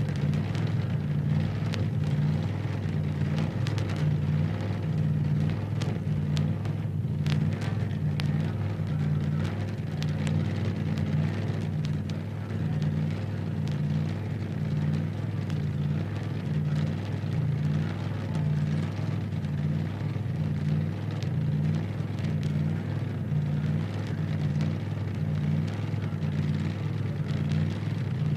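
Film projector running: a steady motor hum with an even, regular low pulse and faint crackle, unchanged throughout.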